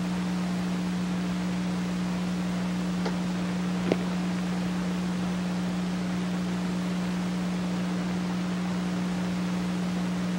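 Steady low electrical hum with an even hiss underneath, unchanging throughout, with two faint clicks about three and four seconds in.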